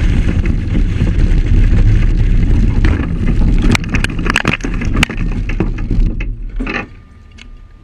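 Car running off the road into a grass field, heard on a camera mounted on its body: heavy wind and road rumble, with a rapid series of sharp knocks and clatters about four to five seconds in as dirt and debris strike the car. The noise drops off sharply near the end.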